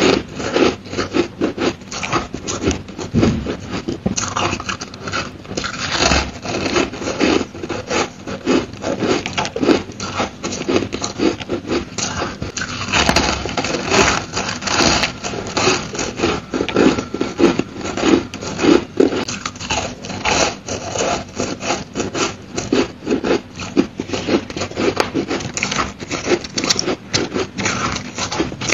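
Close-up chewing of crushed purple ice: a dense run of crisp, crackly crunches, mouthful after mouthful.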